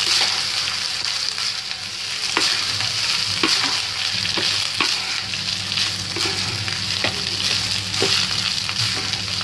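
Cooked rice being stir-fried in a hot non-stick pan with garlic, chilli, onion and soy sauce: a steady sizzle, with the spatula clicking and scraping against the pan now and then as the rice is tossed.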